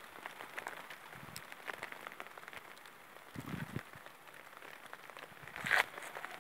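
Falling snow and small ice pellets pattering on paving stones and on the phone, a steady hiss full of small ticks. There is a low thud about halfway through and a brief louder rustle near the end.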